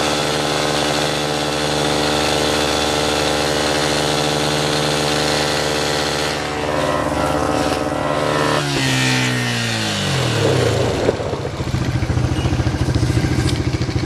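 ATV engine running at steady revs, then its pitch falls off a little over halfway through as it slows, settling into an idle with a fast, pulsing beat.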